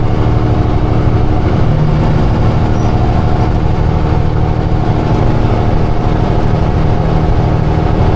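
Peterbilt semi truck's diesel engine running steadily at highway cruise, heard from inside the cab with a low drone and road noise.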